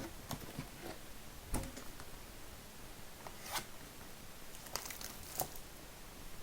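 A sealed trading-card hobby box being ripped open: its wrapping tears and crinkles in scattered sharp crackles, a few louder rips among them.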